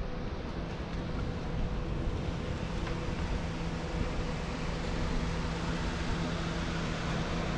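Steady street ambience with a low, constant mechanical hum running under a wash of outdoor noise.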